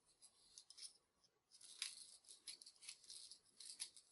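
Faint scraping of a deburring tool's blade around the inside edge of a cut 3/4-inch copper pipe, in short irregular strokes that get busier about a second and a half in, taking out the burr and shavings left by the tubing cutter.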